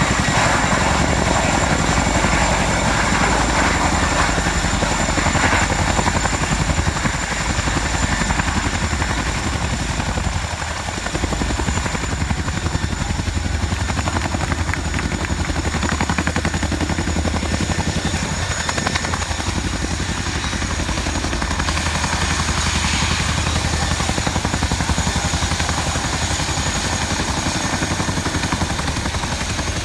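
RAF Chinook's tandem rotors and twin turbine engines running close by as it hovers low and settles onto the grass: a loud, steady rotor beat with a thin high turbine whine over it.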